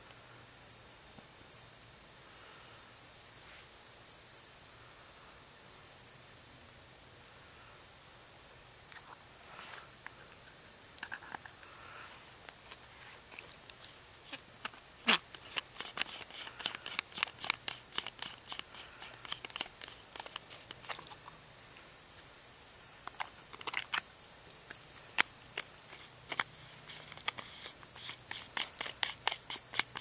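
Steady high-pitched drone of insects, with a small kindling fire beginning to crackle about halfway through in quick, irregular snaps.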